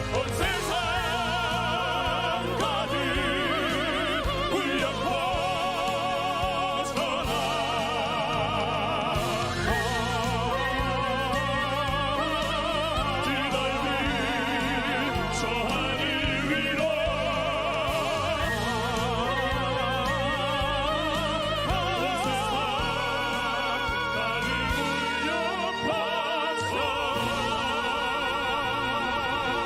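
Operatic male crossover vocal group singing over an orchestral backing. Several voices are held in harmony on long notes with wide vibrato.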